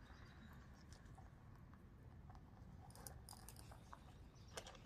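Faint, scattered crunching and clicking of two rabbits chewing dry food pellets from a plastic bowl, with a small cluster of ticks a few seconds in.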